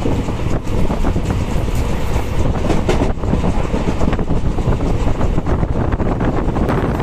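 Indian Railways passenger express train running at speed, heard from on board: a loud, steady rumble and clatter of wheels on the rails, with wind buffeting the microphone.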